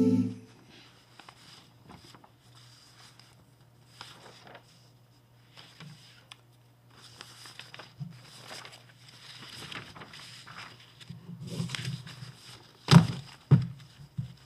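Faint shuffling and rustling over a steady low hum, then two sharp knocks close together near the end.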